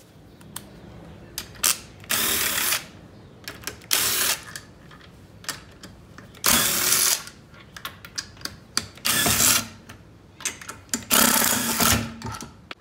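Cordless power driver spinning out a car wheel's lug bolts in five short runs of about half a second to a second each, with clicks and knocks of handling between runs.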